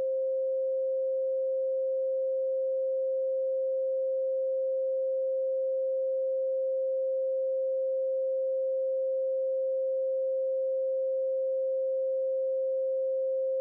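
A steady 528 Hz pure sine tone, one unchanging pitch held at a constant level.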